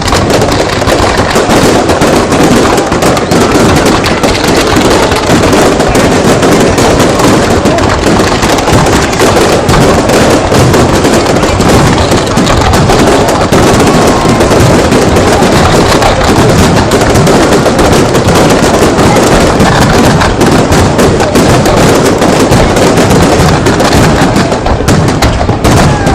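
Fireworks going off in a dense, continuous barrage of overlapping bangs, with a slight lull near the end.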